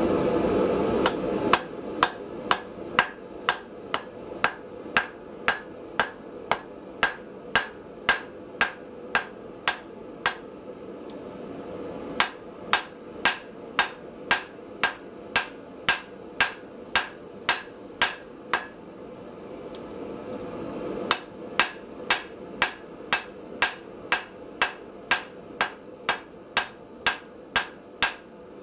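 Hammer blows on a red-hot cable-Damascus steel bar on the anvil, about two sharp ringing strikes a second, in three runs with a short pause between each. A steady rushing noise is heard in the first second or so, then dies away.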